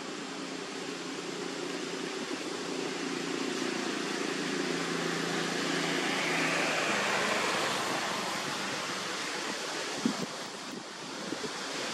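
Outdoor wind-like noise through leafy trees, with a steady low engine-like hum that fades out about two-thirds of the way through. A couple of sharp clicks or knocks come near the end.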